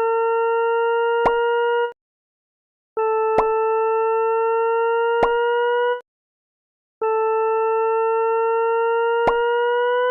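Synthesized electronic tones from the Desmos graphing calculator sounding a tetration graph: steady buzzy notes about three seconds long with short silent gaps between, each rising slightly in pitch, with sharp clicks cutting in now and then.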